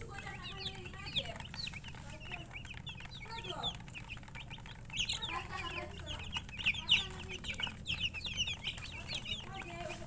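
A flock of young chicks peeping nonstop: many short, high-pitched chirps overlapping, growing busier and louder about halfway through.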